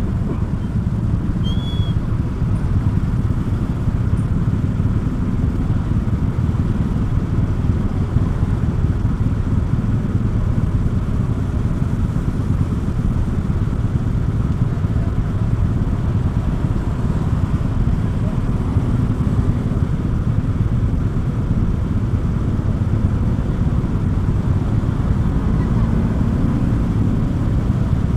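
Steady low rumble of a road vehicle in motion, even and unchanging throughout.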